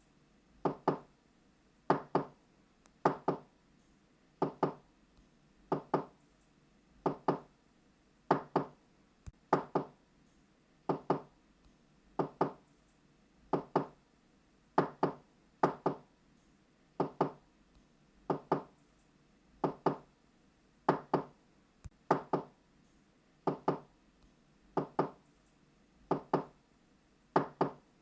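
Knocking on a door, knock-knock in quick pairs, repeated steadily about every second and a half.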